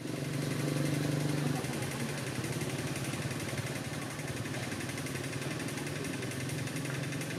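Steady low mechanical hum, like an engine idling, under a constant high hiss; the hum is a little louder in the first second and a half.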